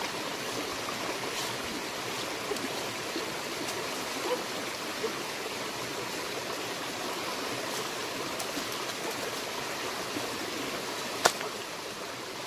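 Steady rush of running water, with a few faint ticks and one sharp click near the end.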